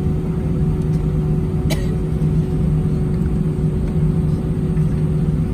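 Steady drone of an Airbus A319's engines and airflow heard inside the passenger cabin, a constant low hum over rumble, with one short click about a second and a half in.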